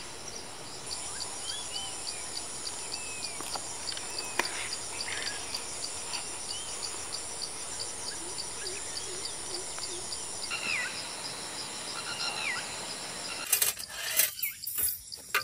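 Forest ambience: insects trilling steadily in rapid, even pulses over a high steady buzz, with birds giving short chirps now and then. A few sharp clicks come near the end as the background changes abruptly.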